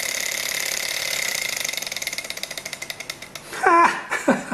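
Small glass-and-metal Stirling engine running fast with a steady whirring clatter, then slowing from about two seconds in, its ticks spreading further and further apart as it coasts down after the burner flame has gone out. A voice comes in briefly near the end.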